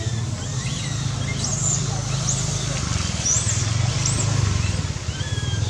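Infant long-tailed macaque squealing: four short, very high rising-and-falling cries, in two pairs, between about one and a half and four seconds in. A steady low rumble runs under them.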